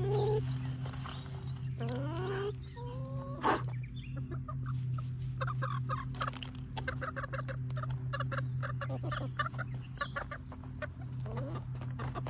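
Backyard chickens clucking, with a run of quick short clucks through the middle and a few rising calls, over a steady low hum.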